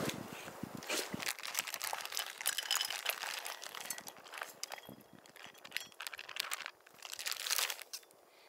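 Plastic zip-top bag crinkling and rustling as a grain, tuna and vegetable salad is squeezed out of it into a bowl, with a dense run of crackles and a louder rustle near the end.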